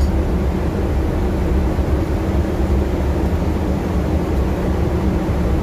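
Homemade forced-air cooking-oil burner running: the electric blower fan driving air into the burning oil in the burner cup, a steady low rumble with a hum.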